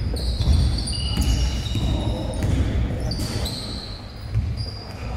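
A basketball game on a hardwood court: the ball bouncing on the floor, with short high squeaks from players' sneakers.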